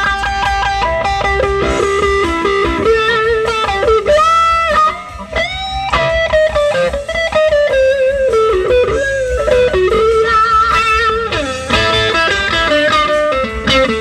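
Electric guitar, a Stratocaster, played through a 1960 Fender tweed Bassman amp: single-note lead lines with held notes that bend up in pitch. The amp runs with a newly fitted Mallory 150 filter capacitor in place of a leaky Astron.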